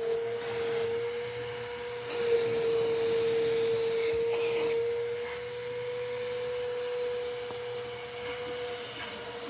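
Eureka AirSpeed NEU100 upright vacuum cleaner running with one of its attachment tools: a steady motor whine over a rush of air. It grows louder about two seconds in and eases back a little after about five seconds.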